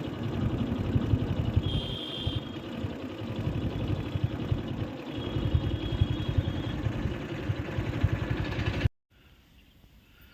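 A motor vehicle's engine running, a dense, uneven rumble that cuts off abruptly about nine seconds in.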